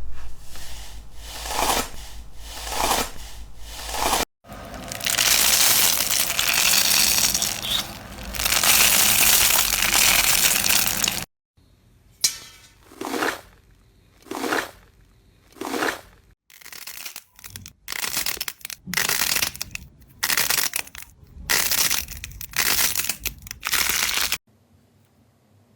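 Slime being squeezed and pressed by hand, with crunchy, crackling presses in a series of short clips that cut off abruptly. One long stretch near the middle is a continuous crackle; the rest is separate squeezes a second or so apart.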